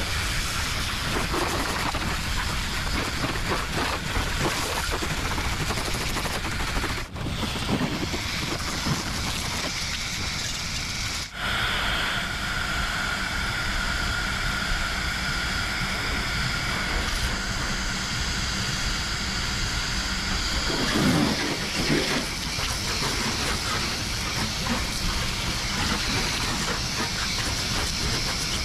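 High-pressure water jet from a pressure-washer lance hissing steadily as it sprays the truck cab, water spattering on the panels. It cuts out briefly twice, and from about twelve seconds in a steady whine sits above the hiss.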